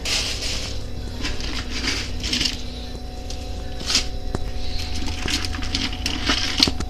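Plastic bag of live blue crabs rustling and crinkling as a hand rummages among them, with scattered sharp clicks of shell and claw, over a steady low hum.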